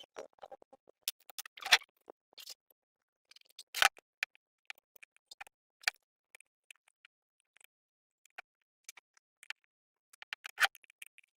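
Scattered light clicks with three sharper knocks, of hand tools and small metal parts being handled during generator work.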